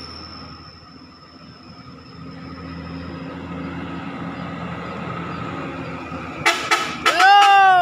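Diesel cargo truck's engine running as it approaches, growing louder. Near the end come a few short toots and then a loud, long horn blast whose pitch rises and then falls.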